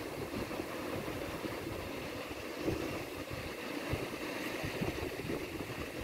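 Small waves breaking and washing up a sandy beach, a steady surf hiss, with wind rumbling on the microphone.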